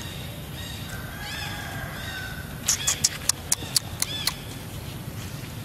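A quick run of about seven short, sharp, high-pitched animal calls lasting about a second and a half, starting about halfway through; before them a faint, thin whistling tone.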